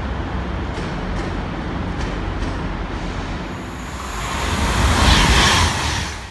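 Diesel multiple unit train drawing into a station under a large train-shed roof: a steady low rumble with a few sharp clicks. A loud hiss swells up about four seconds in and peaks near the end, then the sound cuts off suddenly.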